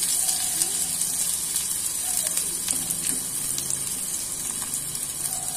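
Finely chopped onion sizzling in hot mustard oil in a steel kadhai: a steady frying hiss with a few small crackles.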